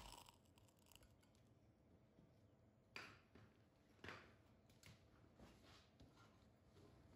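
Near silence, with two faint short ticks about three and four seconds in.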